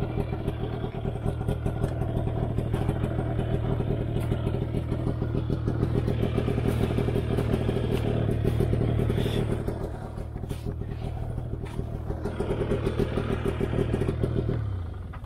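Yamaha VK540 III snowmobile's two-stroke twin engine running steadily, with the track and chassis clattering. The engine note dips briefly about ten seconds in, picks up again, then fades out at the end.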